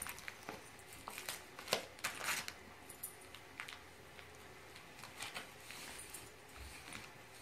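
Shiny wrapping paper on a small present crinkling and rustling in irregular bursts as a German Shorthaired Pointer noses and paws at it, loudest about two seconds in.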